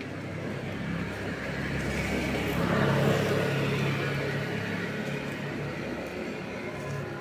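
Street traffic: a motor vehicle passing, its engine and tyre noise growing to a peak about three seconds in and then fading.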